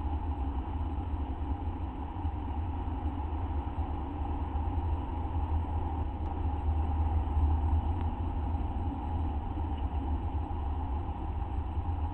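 A steady low rumble with a fainter even hiss above it, unchanging throughout, and a single faint click about six seconds in.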